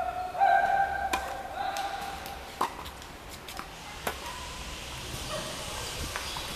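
Tennis rally on a hard court: sharp pops of racket strikes and ball bounces about every one and a half seconds, the loudest a little over two and a half seconds in. A held, pitched call sounds over the first two seconds.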